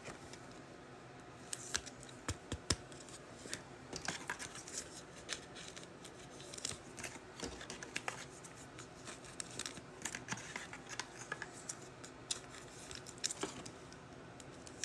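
Trading cards and pack wrappers being handled: faint, scattered light clicks, scrapes and crinkles.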